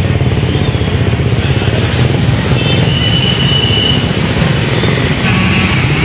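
Road traffic: vehicle and motorcycle engines running in a steady, loud wash of street noise, with a brief high steady tone in the middle.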